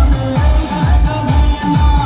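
Loud dance music with a deep kick drum beating a little over twice a second under a sustained melody.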